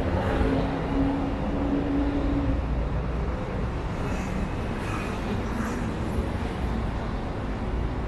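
City street traffic noise: a steady rumble of passing road traffic, with a low steady hum for the first two seconds or so.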